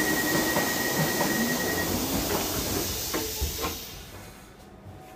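Underground train standing at a platform: a loud steady hiss with scattered clicks and rattles, which dies away about four seconds in to a quieter rumble.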